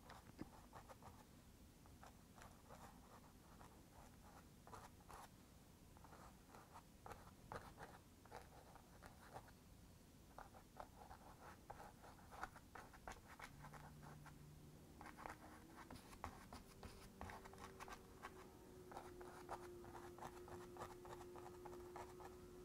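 Faint, quick dabbing and scratching of a small paintbrush against a canvas, in irregular clusters of light taps. A faint steady hum comes in about two-thirds of the way through.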